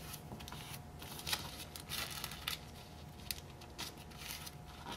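Stack of tissue paper rustling and crinkling faintly as it is accordion-folded and each fold is pressed down with the fingertips, in irregular soft crackles.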